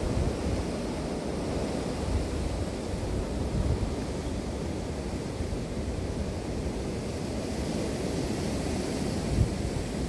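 Strong winter wind blowing in gusts, buffeting the phone's microphone with low rumbling thumps, one stronger gust near the end.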